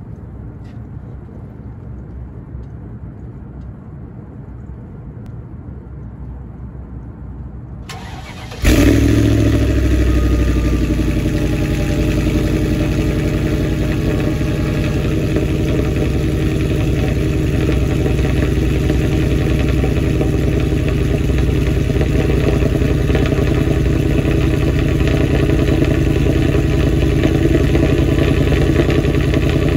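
Mercedes-Benz CLS 55 AMG's supercharged 5.4-litre M113K V8 cold-started: about eight seconds in it catches with a sudden loud start, then idles steadily through its quad exhausts.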